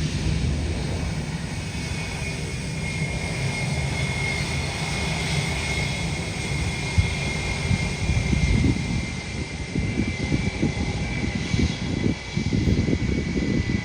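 Boeing 747 freighter's jet engines running, a steady high whine over a rumble that turns gusty and uneven in the second half.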